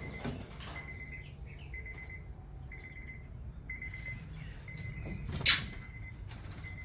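Bird trapped in a garage, chirping faintly now and then, with one sharp, short sound about five and a half seconds in. Behind it a faint, high, steady tone cuts in and out.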